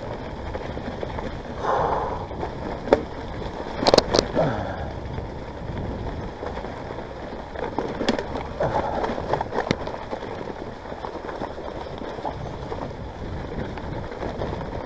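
On One Parkwood mountain bike riding through a muddy, boggy bridleway: steady tyre-in-mud and rolling noise, with sharp knocks and rattles from the bike, the loudest a pair about four seconds in.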